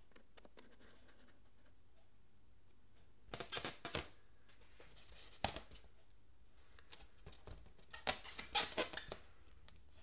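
Fingertips rubbing and pressing on the surface of an inflated latex balloon, making short scratchy, squeaky rubbing noises. A cluster comes about three and a half seconds in, a single sharp one near the middle, and a longer run in the last few seconds.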